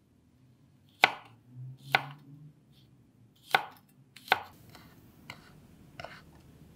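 Chef's knife slicing through a celery stalk onto a wooden cutting board: four sharp cuts about a second apart, then three lighter ones near the end.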